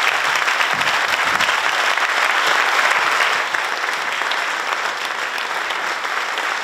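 Audience applauding steadily, the clapping easing off slightly about halfway through.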